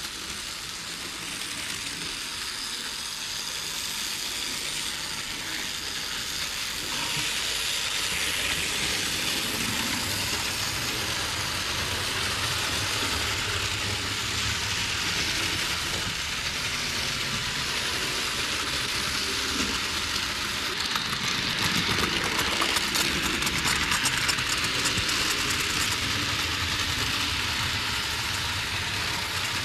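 Cartoon toy steam train running: a steady hissing, rushing noise that grows louder about seven seconds in.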